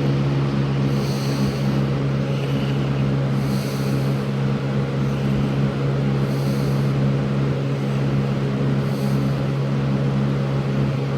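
Haier FBP020W box fan from 2004, with its McMillan motor, running steadily on medium speed. A constant motor hum sits under the even rush of air from the blades.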